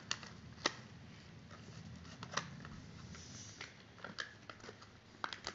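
Small plastic erasers and their plastic packet being handled, giving a few scattered light clicks and taps at irregular moments.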